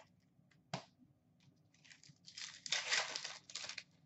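Hands handling hockey trading cards and foil pack wrappers: a single sharp click, then about two seconds of crinkling rustle.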